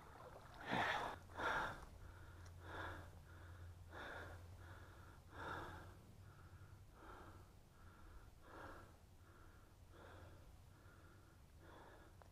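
An angler breathing heavily close to the microphone, a faint puff about every second and a half with softer intakes in between, over a low steady hum.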